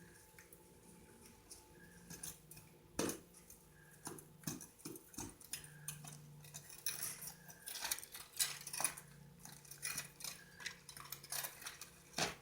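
Scattered metal clinks, knocks and scrapes of crucible and furnace tools being handled during a metal melt, with one sharp knock about three seconds in and a busier run of clinks in the second half.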